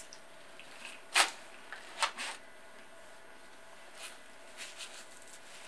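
Eating sounds from biting into and chewing a crispy fried chicken sandwich: a few short, crisp crunches, the loudest about a second in, two more about two seconds in and fainter ones later.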